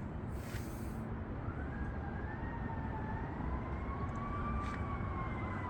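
Steady low outdoor background rumble, joined after about a second and a half by a faint distant whine that slowly rises and then falls in pitch.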